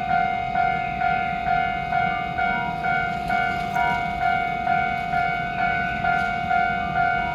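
Japanese railway level-crossing warning bell ringing, a metallic electronic clang repeating evenly about twice a second, with a low rumble underneath.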